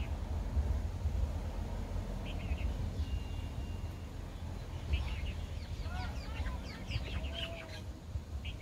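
Open-air ambience: a steady low rumble with birds chirping now and then, the chirps busiest about five to eight seconds in.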